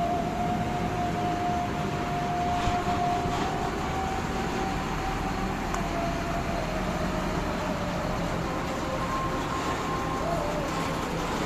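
Fuel tanker truck's diesel engine running at a steady level, with a thin whine that holds its pitch and then slowly sinks lower.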